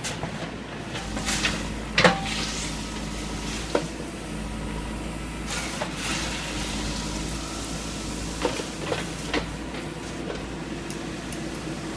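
Backhoe engine running steadily, with several sharp clanks and knocks: a loud one about two seconds in and a cluster of three later on.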